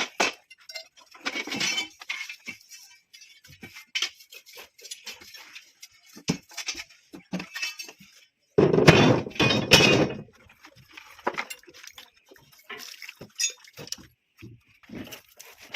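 Building-site hand work: scattered sharp metal clinks and knocks at irregular intervals, with a louder clattering stretch lasting about a second and a half near the middle.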